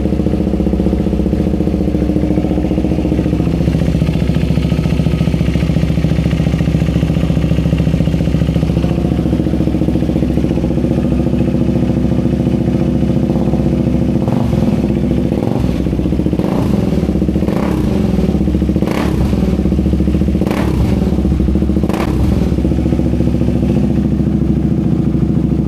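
KTM Duke 390's single-cylinder engine idling steadily, running again after its stuck fuel pump was freed by tapping. From about halfway on, short sharp clicks or knocks come roughly once a second over the idle.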